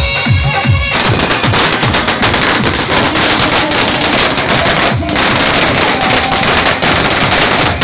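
Firecrackers going off on the ground in a rapid, continuous crackle of sharp pops, starting about a second in. Loud electronic dance music with a thumping beat plays underneath.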